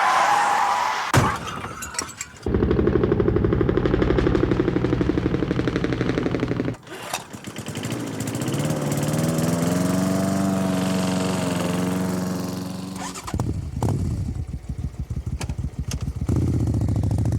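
A string of library sound effects. A short crash about a second in, then motor-vehicle engines: one running with a fast, even pulse, then one rising in pitch and holding, then a rattling engine near the end.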